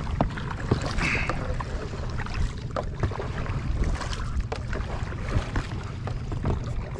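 Steady rumbling noise aboard a small fishing boat on the water, with scattered light clicks and knocks and a brief higher sound about a second in.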